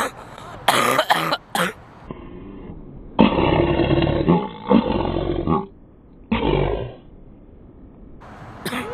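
A person coughing hard: two short coughs about a second in, then a long coughing fit lasting about two seconds, and one more short cough a little later.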